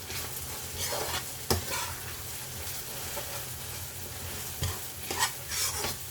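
Okra sizzling as it fries in a frying pan, stirred with a spoon that scrapes and knocks against the pan several times, most sharply about a second and a half in and again near the end.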